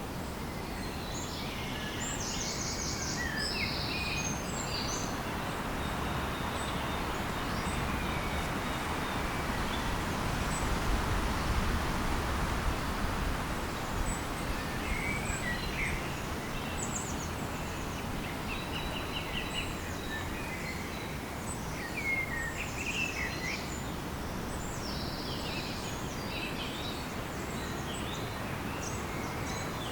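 Outdoor ambience: many short bird chirps and trills over a steady rushing background noise that swells a little about a third of the way in.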